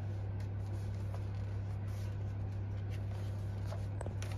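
A steady low electrical hum, with faint paper rustling from a picture book's pages being turned and a couple of soft ticks about four seconds in.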